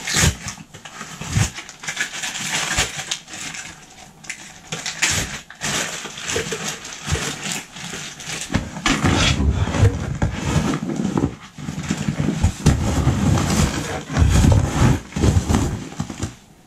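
Someone rummaging through a backpack by hand: rustling of fabric and gear with scattered clicks and knocks, becoming heavier and lower rubbing and shuffling about halfway through.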